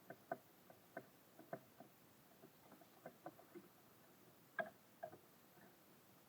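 Faint, irregular taps and knocks of small birds pecking and hopping on a bird feeder, about a dozen in a few seconds. The loudest knock comes a little past halfway.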